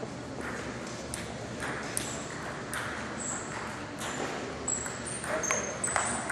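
Table tennis ball clicking sharply on the table and paddles, single clicks about a second apart, then a quick run of clicks near the end as play starts. A few short high squeaks join them over steady crowd murmur in a large hall.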